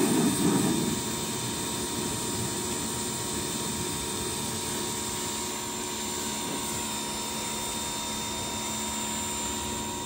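Pressure washer running steadily, its water jet spraying mud off a pickup truck's door and body panels; a little louder in the first second.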